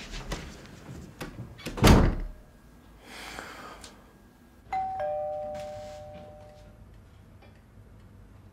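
A door is shut hard about two seconds in, a single loud bang. A little under three seconds later a two-note ding-dong doorbell rings, a higher note then a lower one, each ringing on and fading away.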